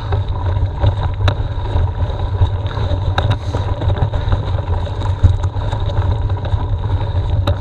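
Steady low rumble and buffeting on a mountain bike's action-camera microphone as the bike climbs slowly along a rough, muddy track, with a few sharp knocks from the bumps.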